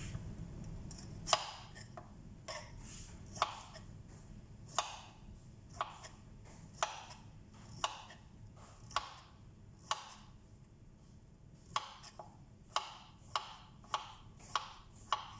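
Kitchen knife cutting broccoli florets on a plastic cutting board: sharp knocks about once a second, coming faster near the end.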